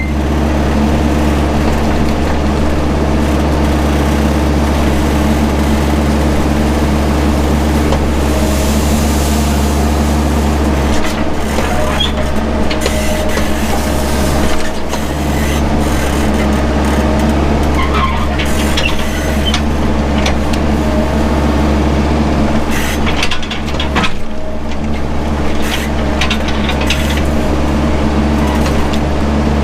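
Mini excavator's engine running steadily at working speed, with a few sharp cracks and knocks as it tears out underbrush.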